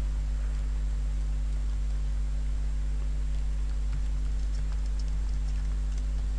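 Faint computer keyboard typing: a scatter of light key clicks, mostly in the second half, over a steady low hum.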